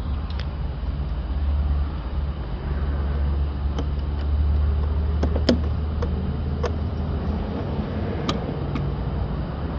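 Hands working plastic parts inside a car door with its inner panel off, making scattered sharp small clicks and taps over a steady low rumble.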